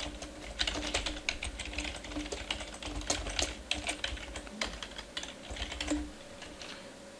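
Typing on a computer keyboard: a quick, irregular run of keystrokes that stops about six seconds in.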